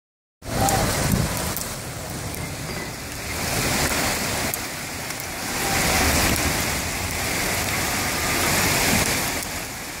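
Heavy rain mixed with hail pelting the street: a dense hiss full of small ticks of stones striking hard surfaces, swelling and easing in waves.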